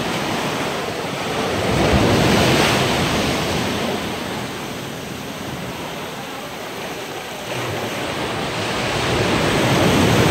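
Ocean surf breaking and washing up over the sand, swelling about two seconds in and again near the end, with wind buffeting the microphone.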